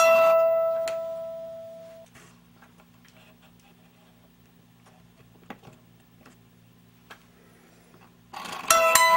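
Plucked metal strings of a small mechanical music automaton ring out and fade over about two seconds. A quiet stretch follows with a faint low hum and a few small mechanical clicks as its knurled brass wheel is turned by hand. Near the end the machine starts plucking notes again.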